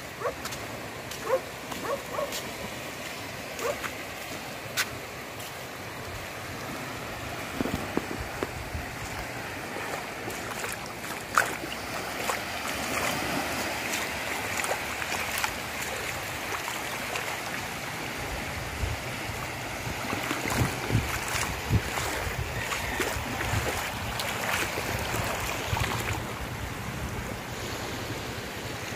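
Small waves lapping on a shallow sandy shore at low tide, with wind buffeting the microphone and scattered light clicks; the sound grows a little louder about halfway through.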